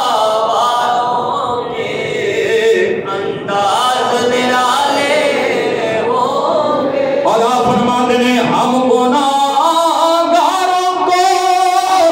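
A man chanting a melodic religious recitation without accompaniment, holding long notes that slide up and down.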